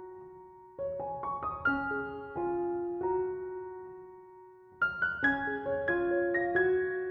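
Background piano music: gentle phrases of single notes that ring and fade, pausing briefly before a fuller passage begins about five seconds in.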